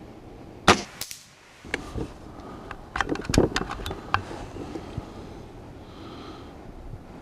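A .177 Brocock Concept Elite S6 pre-charged pneumatic air rifle fires one shot, a single sharp crack about a second in. A run of smaller clicks follows around three seconds in.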